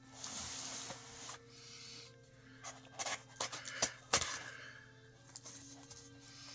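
A cardboard shipping box being cut open: a blade drawn through the packing tape for about a second, then scattered knocks and taps as the cardboard is handled.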